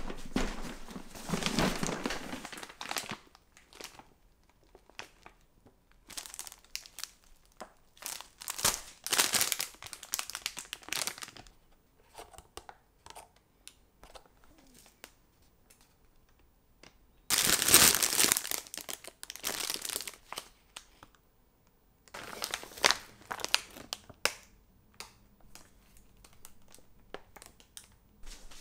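Plastic and foil insulated grocery packaging crinkling and rustling as items are unpacked, in several separate bursts with short pauses between, the loudest a little past the middle.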